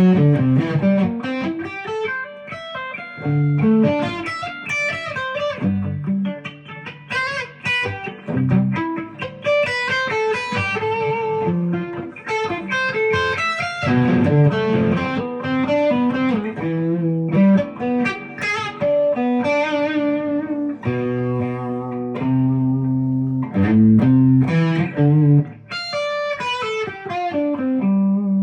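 Epiphone Les Paul Custom electric guitar played through an amp: quick runs of single notes and chords, with one chord held for a couple of seconds past the middle.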